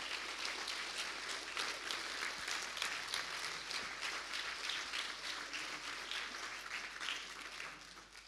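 Audience applauding: many hands clapping steadily, dying away near the end.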